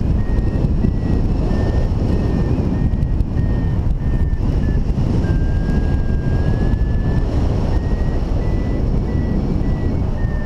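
Airflow rushing over the microphone in paragliding flight, with a variometer beeping in short dashes at one high pitch. The beeps merge into a longer unbroken tone around the middle, then break up again and rise slightly in pitch near the end, the vario's signal of lift.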